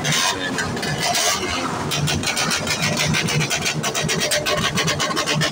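Small motorcycle engine running with a rapid, even pulsing beat.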